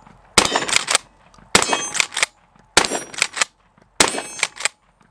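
Rock Island Armory All Generations 12-gauge pump shotgun firing birdshot. Four shots come in quick succession, about a second and a quarter apart, the first about half a second in. Each shot is followed by a couple of short metallic clacks.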